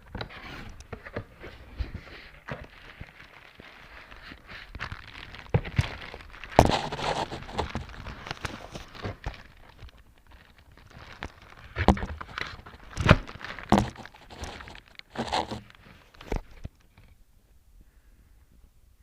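Shoebox and paper wrapping being handled: rustling and crinkling with occasional knocks, loudest in clusters about six seconds in and again from about twelve to sixteen seconds, stopping shortly before the end.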